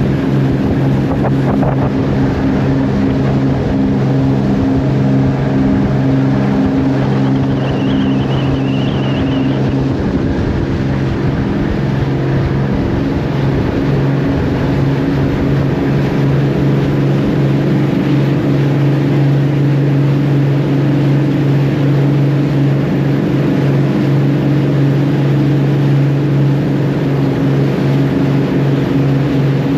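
Fishing boat's engine running steadily under way, a constant low hum with a noisy wash over it.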